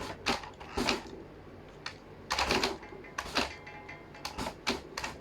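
Irregular plastic clicks and clatters from a 1986 Coca-Cola remote-control toy car being run, a few knocks a second at times.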